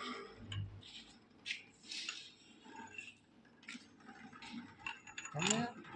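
Scattered light metallic clinks and taps, a few a second apart, from tools and metal parts being handled.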